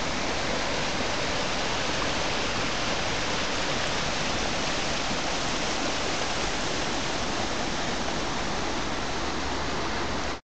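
Shallow rocky river rushing over stones and riffles: a steady, even roar of moving water. It cuts off suddenly near the end.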